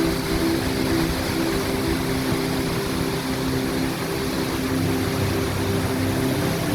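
Cham Waterfall's heavy flow of cold water roaring steadily, with a low hum of several held tones beneath it.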